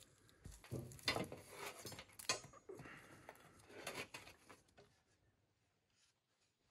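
Metal clanks and scraping as a small sheet-metal stove and its metal rods are handled, with sharp knocks about one and two seconds in.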